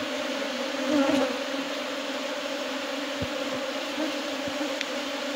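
A crowd of honeybees buzzing at the hive entrance: a steady low hum, swelling briefly about a second in.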